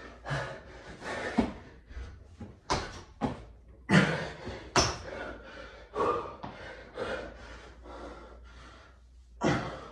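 Bodyweight burpees on a tiled floor: a string of irregular thuds and slaps as hands plant, the body drops into push-ups and the feet jump in and out, mixed with hard exhaled breaths.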